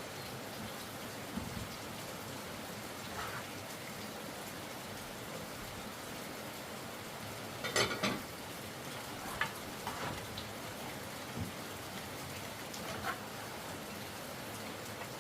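Steady rain falling, an even hiss, with a few scattered knocks and clatters, the loudest about eight seconds in.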